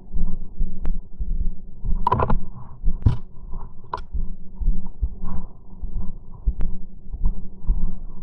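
Dull footstep thuds of a person walking, about two a second, heard close to the camera, with a few sharp clicks or snaps, the loudest about two seconds in.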